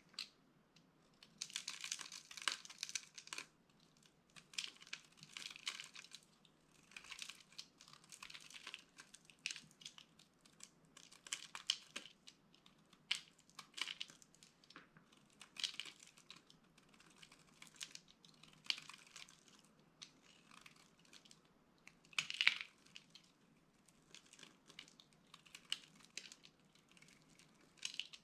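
Dry soap being crushed, crunching and crackling in short bursts every second or so, each a cluster of sharp little cracks.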